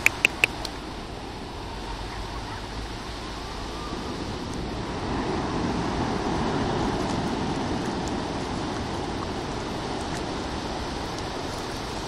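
Steady rush of ocean surf with wind on the microphone, swelling for a few seconds midway. Three quick sharp clicks right at the start.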